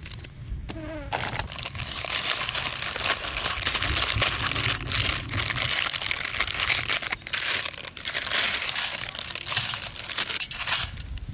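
Plastic Maggi noodle packet crinkling as it is handled and shaken out over a plate, a dense crackle that stops shortly before the end.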